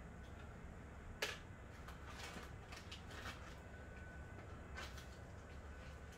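A sharp click about a second in, then lighter scraping, rustling and a second click near the end: parts and tools being handled during a side skirt extension install, over a low steady hum.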